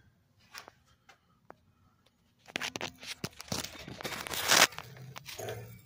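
Close rustling, crinkling and tearing noise of material being handled right at the phone, starting about two and a half seconds in and loudest around four seconds in, after a few faint clicks.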